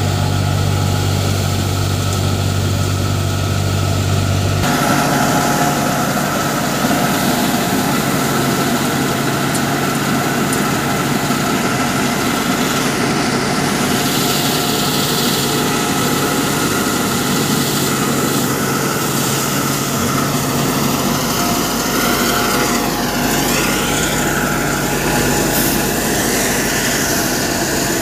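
Swaraj 960 FE tractor's diesel engine driving a paddy thresher, both running steadily at working speed as paddy is fed into the threshing drum. The low hum shifts about five seconds in.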